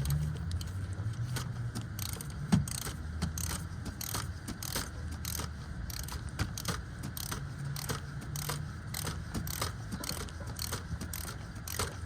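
Ratchet wrench clicking steadily as it is swung back and forth, about three to four clicks a second, while a fastener is run down.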